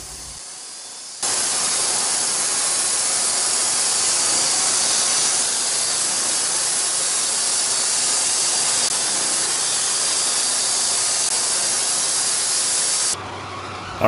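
Homemade bandsaw mill cutting through white oak: a steady, loud hiss of the blade in the cut. It starts suddenly about a second in and stops suddenly near the end.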